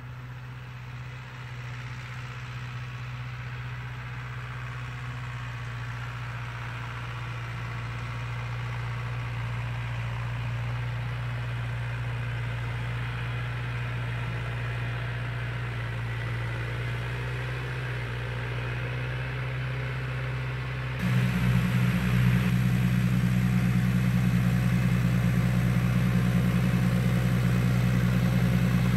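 Tractor engine running steadily under load while pulling a manure spreader on a hydraulic drive-axle trailer across a slope. It grows gradually louder, then about 21 seconds in it is suddenly much louder and closer.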